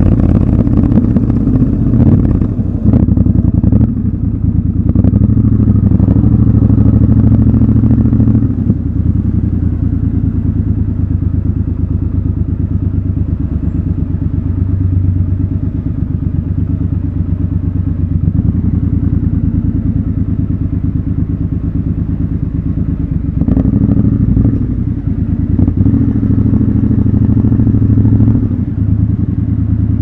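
Triumph Scrambler 1200 XC's 1200 cc parallel-twin engine running at low, steady revs while the bike rolls slowly. It is louder in the first several seconds and again near the end, with a few short knocks.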